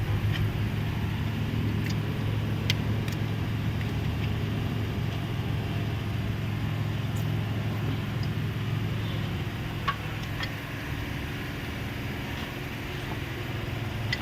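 An engine running steadily with a low, even hum, and a few sharp clicks or taps on top, one near the start and one about two-thirds of the way through.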